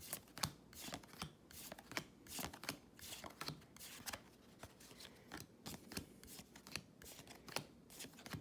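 Trading cards being flicked through one by one in the hand, a quick run of light slaps and slides, a few each second.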